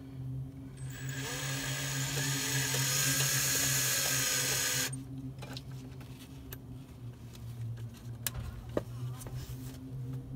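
A power driver spinning a bolt out of the plate under the engine: a high whirring hiss that starts about a second in and cuts off sharply after about four seconds. A few light clicks of the tool on the bolt follow, over a steady low hum.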